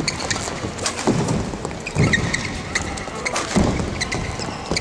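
Badminton doubles rally: sharp racket strikes on the shuttlecock, shoes squeaking in short chirps, and heavy footfalls thudding on the court mat, about one thud a second.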